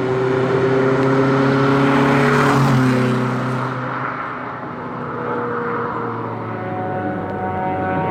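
Honda Civic hillclimb car's engine running hard at high revs. It is loudest about two to three seconds in, then the pitch steps down and climbs steadily again as the car keeps accelerating.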